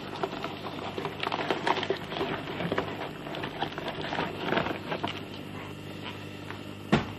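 Clear plastic model pieces crackling and clicking as they are handled. The clicks are busiest over the first five seconds, then one sharp click comes near the end.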